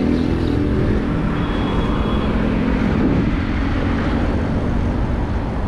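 Steady rush of wind and passing road traffic picked up by a bicycle-mounted camera's microphone while riding along a highway, with a motor vehicle's engine hum fading in the first second.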